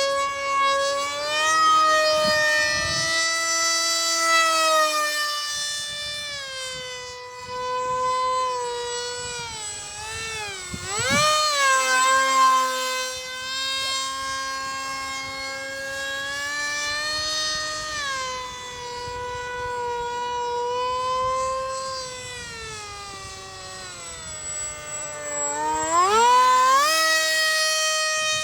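Electric motor and pusher propeller of a foam SU-27 RC jet in flight: a loud, high-pitched whine with a strong tone that wavers in pitch. The pitch dips sharply and climbs back twice, around the middle and near the end.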